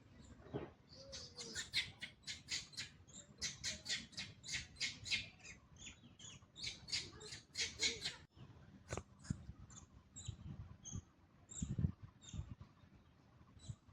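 Monkeys squeaking: a quick run of short, high-pitched squeaks about four a second, thinning out to scattered chirps about eight seconds in, with a few low knocks near the end.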